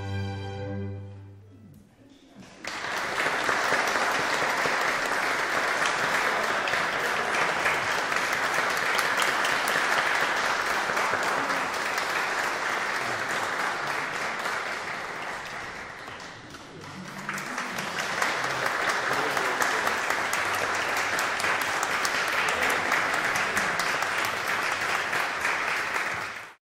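A string orchestra's final held chord dies away, then the audience applauds at length. The clapping eases briefly about two-thirds of the way through, swells again, and cuts off suddenly near the end.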